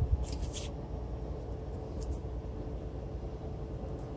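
Handling noise from working on an opened alternator: a thump with a short rattle of clicks at the start and a couple of light clicks about two seconds in, over a steady low hum.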